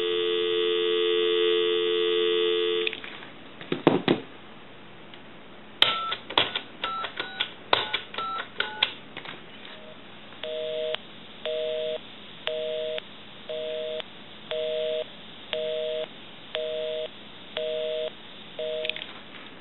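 Telephone line dial tone for about three seconds, a click, then a quick string of touch-tone (DTMF) digits being dialed. A busy signal follows, beeping about once a second: the called number is busy.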